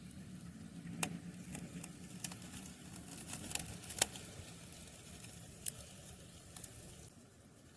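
Scattered sharp ticks and taps, irregular and a few to a second, over a low steady hum.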